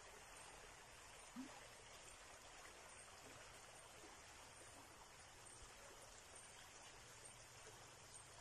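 Near silence: a faint, steady hiss, with one small knock about a second and a half in.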